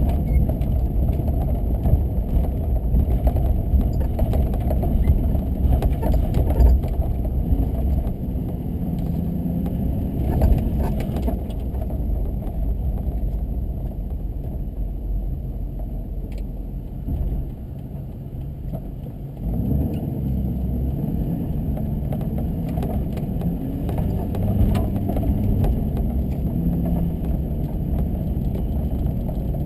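A car driving, with a steady low rumble of engine and tyres. It eases off for a couple of seconds a little past halfway, then picks back up.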